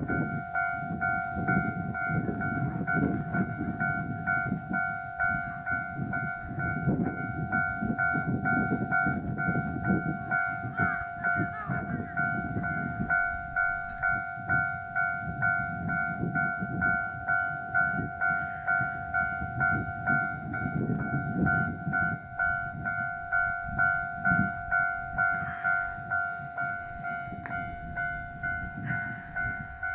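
A Japanese railway level-crossing warning alarm rings in a steady, fast repeat of the same ding over an uneven low rumble.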